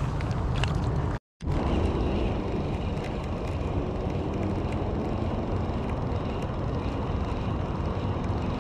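Steady low rumble of wind on the microphone while a baitcasting reel is cranked to retrieve a lure. The sound cuts out for a moment about a second in.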